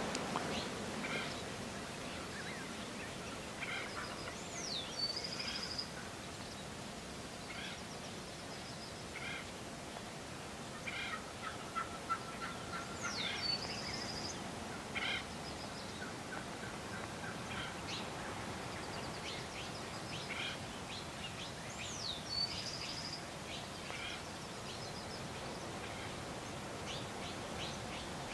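Gould's wild turkeys gobbling, short rattling gobbles coming again and again through the stretch. Another bird's whistled note, sliding down into a brief high tone, recurs about every nine seconds.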